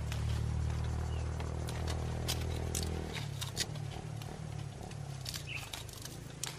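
Sharp snaps and crackles of Bauhinia flower stalks being broken off by hand and of dry leaves underfoot, a few scattered clicks. Beneath them runs a low steady hum that drops off about three seconds in.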